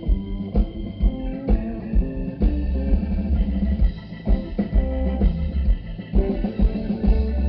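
Live band playing a song: guitar and bass guitar over drums keeping a steady beat.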